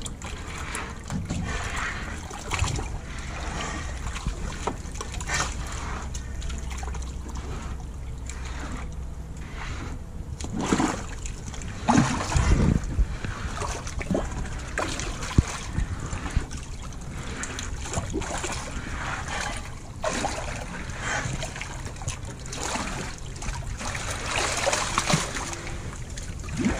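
Water splashing and bubbling at the surface beside a boat hull, in irregular bursts that are loudest about halfway through, as air bubbles from a diver working underneath rise and break the surface.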